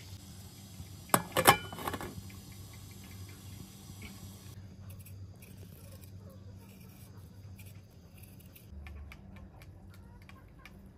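A cluster of sharp clicks about a second in. Then faint clicking and scraping of a small knife paring a potato, over a low steady hum.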